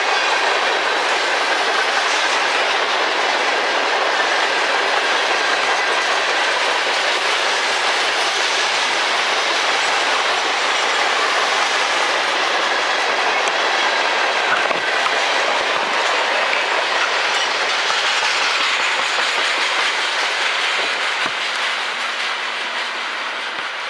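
Loaded coke hopper cars of a freight train rolling past: the steady rumble and clatter of steel wheels on the rails, with a faint steady wheel squeal through the first half. The noise eases off over the last few seconds as the end of the train goes by.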